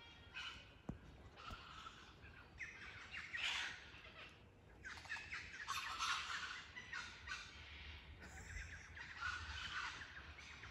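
Wild birds chirping and calling in short, repeated bursts.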